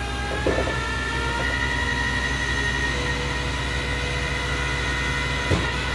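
Tow truck running, a steady high mechanical whine over a low engine hum, with a couple of short knocks.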